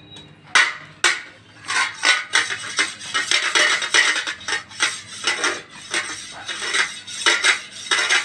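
A steel spoon striking and scraping a stainless-steel plate: two sharp clanks about half a second and a second in, then rapid clinking and scraping strokes that keep on.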